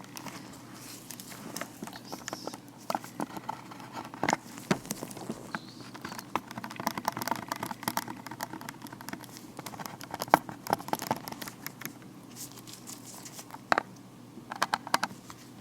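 Vinyl-latex gloved hands working close to the microphone: irregular sharp taps and clicks mixed with crinkly rubbing of the glove material.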